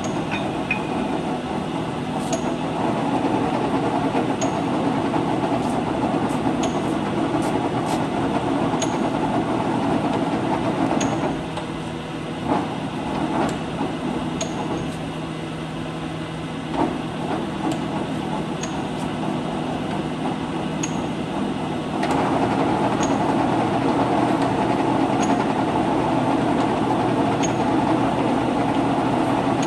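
LeBlond 20-inch engine lathe running under power, its spindle and geared headstock giving a steady mechanical drone with a light tick about every two seconds. About a third of the way through it drops to a quieter running level with a few knocks, then comes back up to full level about two-thirds in.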